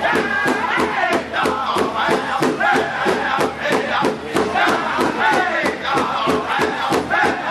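Powwow drum group singing in high-pitched voices over a fast, steady beat struck on a large powwow drum: a ladies' fancy shawl dance song.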